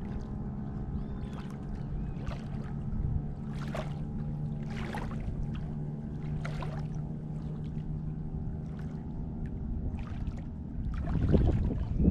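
A motor running steadily, with short splashes of water every second or so and a louder splash near the end.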